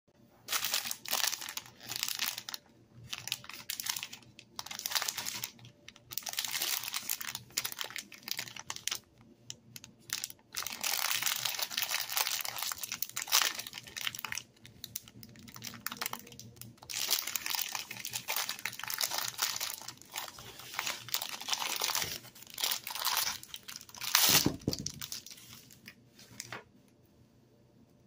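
Crinkly plastic snack wrapper of a fig bar being handled, crumpled and torn open by hand, in repeated bursts of crinkling with one louder burst near the end. The crinkling stops shortly before the end.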